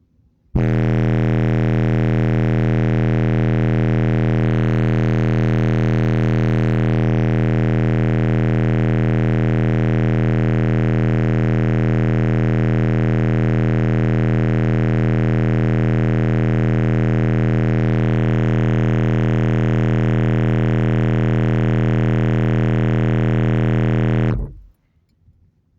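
Three Slapz Audio Oblivion 15-inch subwoofers, driven by a Shock 8k amplifier, playing a single steady bass test tone at full power, loud and buzzy with many overtones. It starts about half a second in and cuts off sharply near the end.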